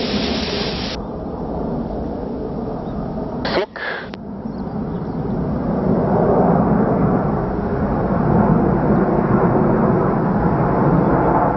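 Distant rumble of jet engines from four Kawasaki T-4 jet trainers flying in formation overhead. The rumble grows a little louder from about six seconds in, with a short click and dip in the sound near four seconds.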